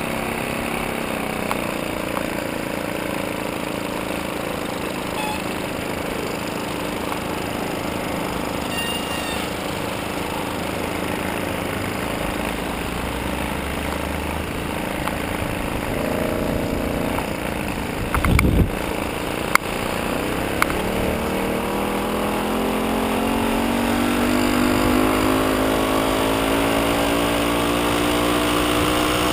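VéloSoleX moped's small two-stroke engine running steadily, easing off a little past halfway. A loud thump and a couple of sharp clicks follow. The engine then picks up speed, its pitch rising steadily to the end.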